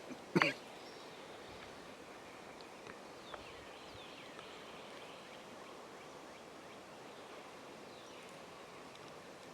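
Quiet woodland ambience: a steady soft hiss with a few faint, distant bird chirps. A short, sharp sound comes just under half a second in.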